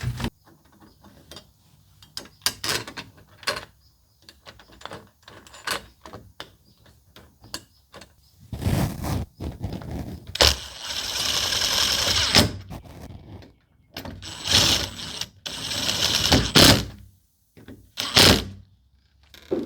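Smart-lock hardware being handled and fitted to a door: scattered clicks and knocks, then several longer scraping, rattling stretches in the second half.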